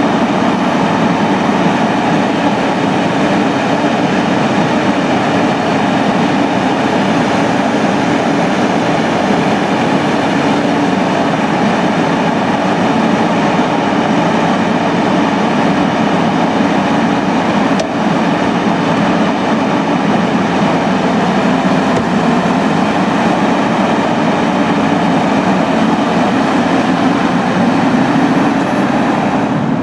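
Caterpillar 320C tracked excavator's diesel engine running steadily while it digs, a constant mechanical drone with no pauses.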